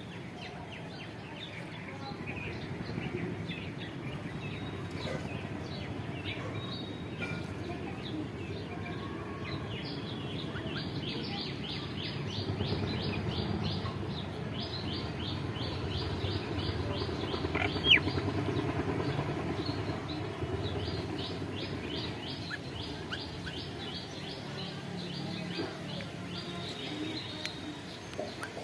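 Birds calling: long runs of short, high, evenly repeated chirps, about three a second, over a steady low background noise, with one sharper, louder note partway through.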